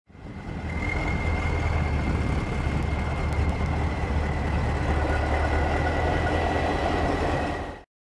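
Large tractor's diesel engine running under load: a steady, heavy low rumble with a high whine over it. It fades in over the first second and cuts off just before the end.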